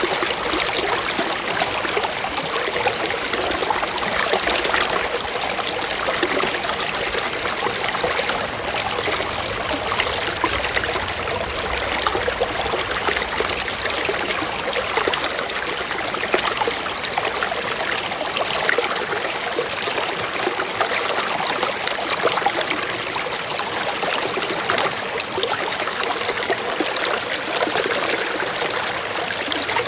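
Water flowing in a small stream: a steady, unbroken trickling and babbling.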